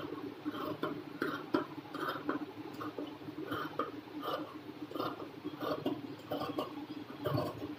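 Large tailor's shears cutting through cotton fabric on a table in a run of snips, about two a second, over a faint steady hum.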